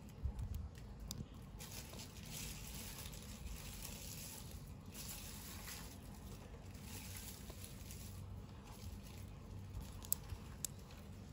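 Faint rustling of plastic packaging being handled, coming and going, with a few small sharp clicks about a second in and near the end.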